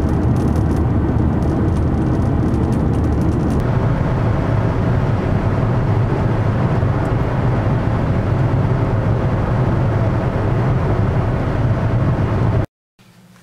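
Steady road and engine noise heard inside a car cabin while driving on a highway, a constant low rumble. It cuts off abruptly near the end.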